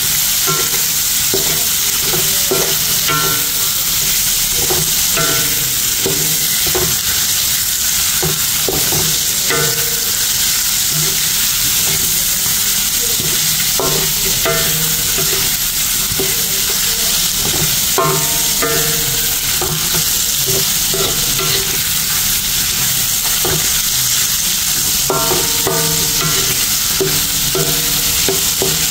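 Sliced ginger, lemongrass, galangal, shallots, garlic and green chillies sizzling steadily in hot oil in a wok, sautéed until fragrant. A wooden spatula stirs and scrapes across the pan in short bursts every few seconds.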